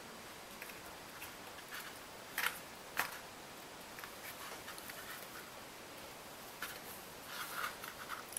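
Hands working a tape-wrapped wire wreath base, twisting a small twig onto it: faint rustling with scattered light clicks, two sharper ticks about two and a half and three seconds in and a quick run of small crinkles near the end.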